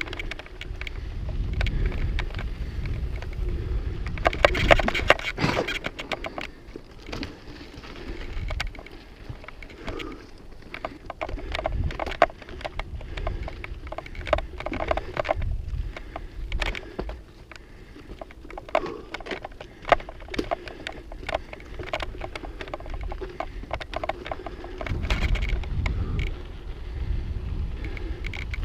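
Mountain bike rolling over a rough, rocky trail: tyre noise with a constant stream of rattles and clicks from the bike, and wind rumbling on the microphone at times.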